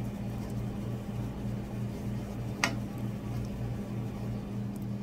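Steady low mechanical hum with a pulsing undertone about four times a second, and a single sharp click about two and a half seconds in.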